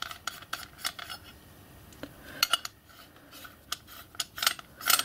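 Light metallic clicks and clinks, scattered and irregular, from a miniature locomotive's sheet-brass pannier water tank and its filler cap being handled, with a few louder knocks near the end.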